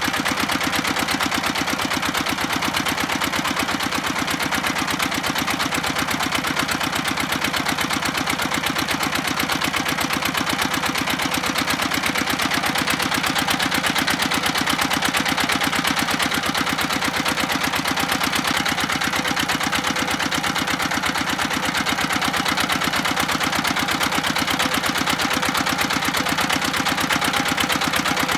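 Small engine running steadily with a fast, even chugging, driving a belt-driven puffed-snack extruder while it pushes out puffed snack sticks.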